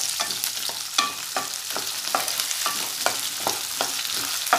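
Shallots, garlic, green chillies and curry leaves sizzling steadily in hot oil in a metal kadai while a spatula stirs them, scraping and tapping against the pan several times a second.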